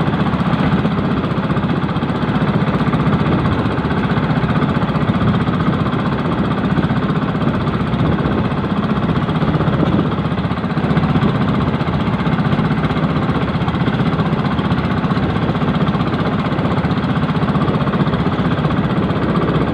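Outrigger fishing boat's engine running steadily under way, a loud, fast, even beat.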